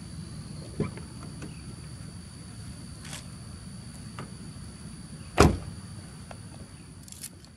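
2007 Ford Focus 2.0L Duratec four-cylinder with an aftermarket exhaust, running with a steady low rumble. A sharp thump comes about a second in, and a much louder thump about five and a half seconds in.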